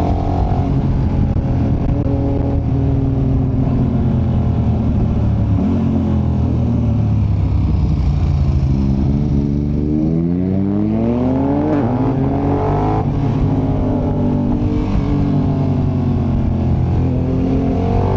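KTM 1290 Super Adventure's V-twin engine heard from on board the bike. The revs ease down slowly for the first half, then rise steeply for a couple of seconds around ten seconds in. They drop suddenly at a gear change and the engine pulls on steadily.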